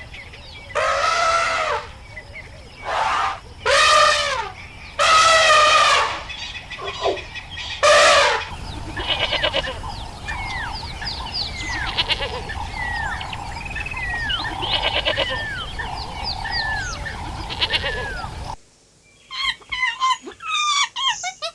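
Farm animals bleating: five loud, drawn-out calls over the first eight seconds or so. Then a flock of small birds chirps, many short calls falling in pitch over a low steady hum, until it cuts off abruptly near the end.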